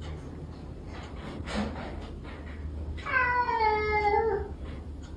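A cat meowing once, a single long drawn-out meow about three seconds in that falls slightly in pitch, over a low steady hum.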